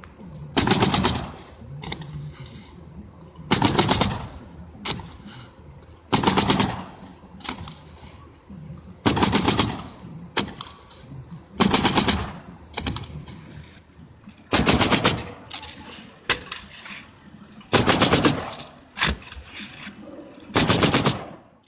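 Pneumatic roofing nail gun fired in rapid bursts, each a quick rattle of shots lasting under a second, repeated eight times about every three seconds.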